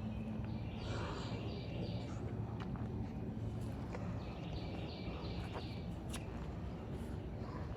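A bird singing in the background, phrases of quickly repeated short high notes about a second and a half long, twice with a pause between, over a low steady rumble.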